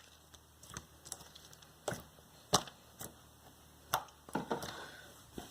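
Borax-activated clear-glue slime being kneaded and squeezed by hand, giving irregular sticky clicks and pops, about eight over a few seconds. The slime is still a little sticky and under-activated.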